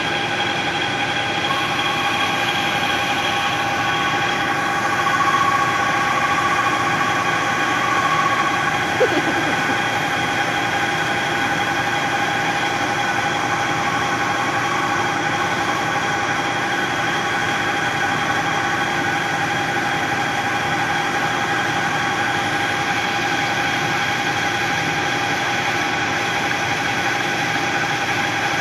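Metal lathe running steadily, turning a shift knob blank on a mandrel while it is roughed out, with a steady motor hum. A higher tone joins for several seconds near the start, and a single click comes about nine seconds in.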